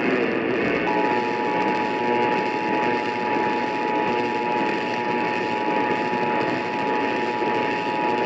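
Emergency Alert System attention signal: two steady tones sounding together, starting about a second in and holding, over a heavy hiss of radio static.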